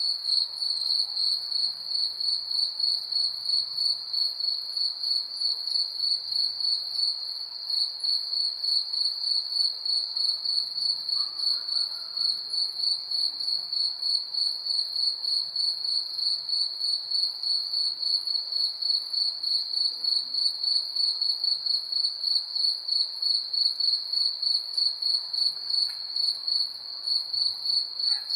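Night-time chorus of crickets chirping in a steady, pulsing trill of about three to four pulses a second, with a fainter, higher insect trill alongside.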